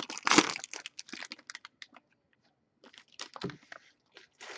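Crinkling and rustling of trading-card packaging and cards being handled, in quick irregular crackles that pause briefly in the middle and pick up again near the end.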